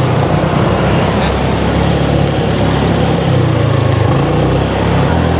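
Motor scooter engine running steadily under way, its note shifting slightly a few times, with rushing wind noise over it.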